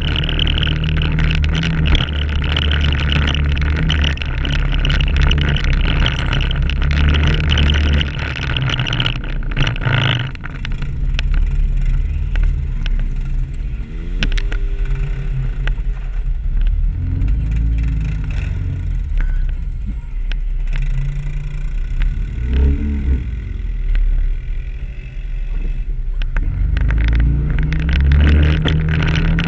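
Can-Am ATV engine heard from on board as the machine rides a trail. It runs hard at first, eases off about a third of the way in with the revs rising and falling a couple of times, then pulls strongly again near the end.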